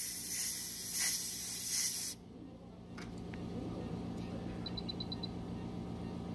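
A jet of air hissing loudly and evenly, cutting off sharply about two seconds in. After it a steady low machine hum continues, with a quick run of six short high beeps near the end.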